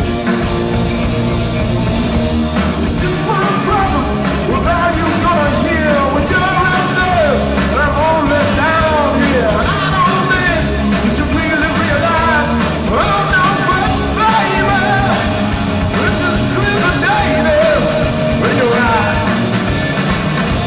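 Live rock band playing: electric guitars, bass guitar and drums, with a lead melody bending in pitch over the band.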